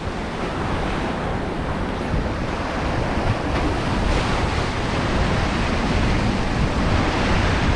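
Ocean surf washing and breaking against a rock ledge, a steady rush of white water, with wind on the microphone.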